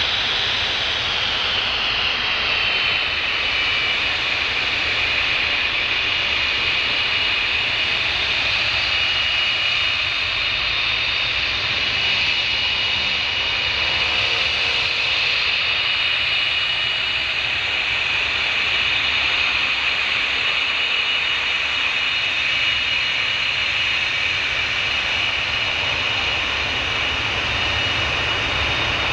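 Panavia Tornado's twin Turbo-Union RB199 turbofans running with a steady, loud high-pitched whine over a bed of jet noise; the whine drops slightly in pitch in the first few seconds, then holds.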